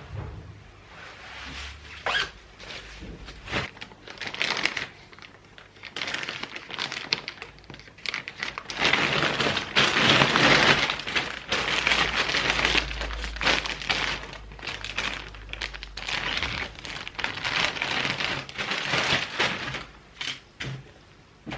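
Plastic packaging being crinkled and torn by hand, in irregular rustling bursts with a few light knocks, loudest about halfway through.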